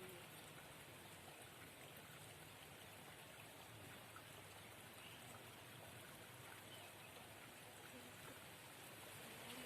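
Near silence with a faint, steady hiss of water.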